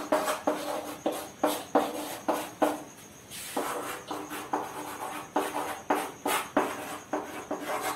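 Chalk writing on a chalkboard: an irregular run of quick taps and short scrapes as each stroke is made, with a brief lull about three seconds in.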